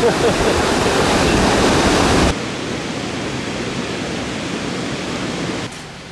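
Water rushing steadily over a small river weir, loud and even, cutting off abruptly about two seconds in. A quieter steady rushing noise follows, then drops away again near the end.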